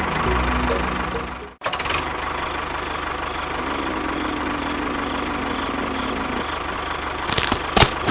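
A small engine running steadily, cutting out for a moment about one and a half seconds in, with a few sharp clicks near the end.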